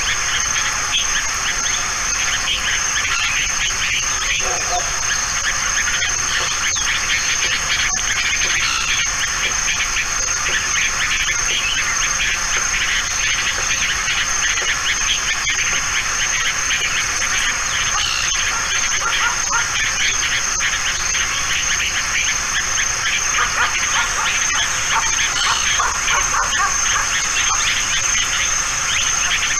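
Steady, dense outdoor background noise with a constant high-pitched whine, unchanging throughout.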